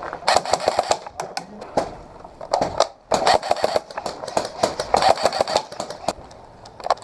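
Airsoft guns firing in rapid bursts, with several strings of fast sharp cracks and short pauses between them.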